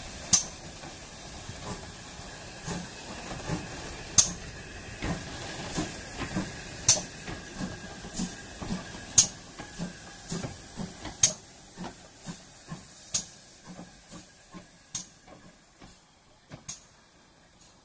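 GWR Manor Class steam locomotive No. 7820 Dinmore Manor rolling slowly past with a steady steam hiss and a run of sharp clicks from its wheels on the rails. The clicks grow quieter and sparser near the end as it moves away.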